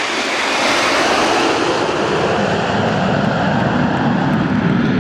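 A formation of nine Aermacchi MB-339 PAN single-turbojet trainer jets passing close overhead. The jet noise is at its sharpest about a second in, then turns deeper as the formation flies away.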